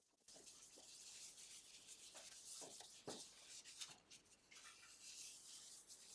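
Faint rubbing by hand on the wooden surface of an applewood bowl, as a finish is wiped on. A couple of soft knocks come about halfway through.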